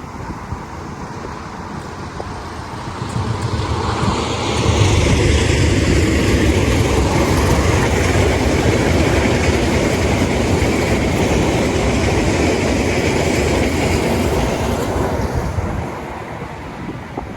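A train passing close by on the track, its wheel and rail noise building a few seconds in, staying loud with a rapid clattering for about ten seconds, then dying away near the end.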